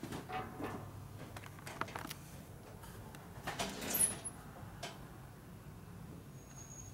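Faint workshop handling sounds: scattered light clicks and a short scraping rustle about three and a half seconds in, with a brief high squeak at its loudest point.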